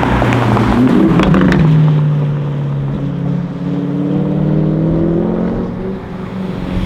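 Audi RS6 C7's twin-turbo V8 through an Akrapovic exhaust: a few sharp crackles and pops in the first second or so. Then a steady engine note rises slowly in pitch as the car accelerates, and it eases off near the end.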